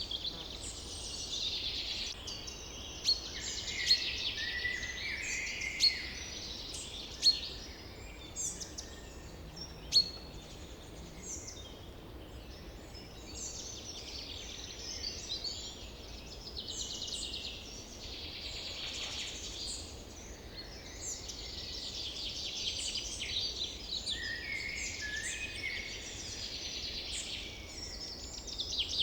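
Forest ambience of many birds singing and chirping at once, a continuous chorus of overlapping trills and calls, with several short, sharp, loud chirps in the first ten seconds.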